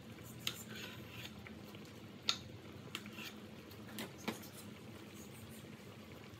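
Water boiling in a cooking pot: a steady low bubbling with a few scattered sharp pops and ticks, the loudest about two seconds in.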